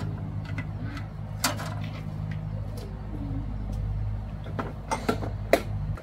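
Sharp metallic clinks of a steel wrench working against a walking tractor's single-cylinder engine, a few scattered and a quick cluster near the end, over a steady low hum.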